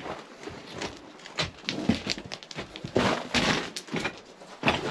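A person scrambling on loose rock and dirt in a mine, making irregular crunches, scrapes and knocks, with heavy breathing around the middle.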